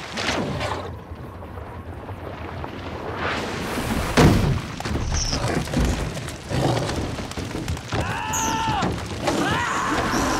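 Film sound effects of a shoal of flying fish: splashes and heavy thuds as fish burst from the water and slap against a wooden lifeboat, with a loud hit about four seconds in. Two loud pitched cries that rise and fall come near the end.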